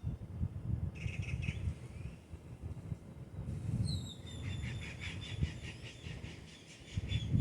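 A bird calling: a brief quick run of notes about a second in, then a long, fast, rattling trill of repeated notes that opens with a falling note and runs until just before the end. A low rumble underlies it throughout.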